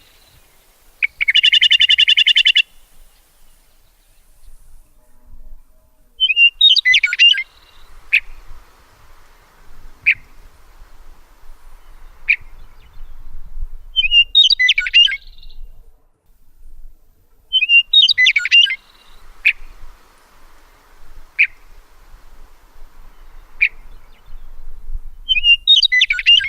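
Songbirds singing: a short warbled phrase comes back every four to eight seconds, with single sharp chirps about every two seconds between phrases. About a second in there is a harsh, buzzy call lasting about a second and a half.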